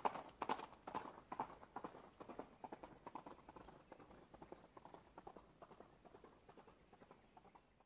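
A rapid run of short clopping knocks, about four or five a second, fading steadily and stopping near the end.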